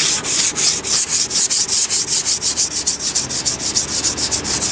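Hand sanding with thick-backed 220-grit sandpaper over spot putty on a steel pickup fender lip: fast, even back-and-forth strokes, several a second.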